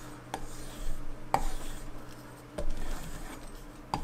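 Steel Décocuir round knife (head knife) drawn over leather in rasping strokes, with four sharp knocks about a second apart, the loudest about a third of the way in.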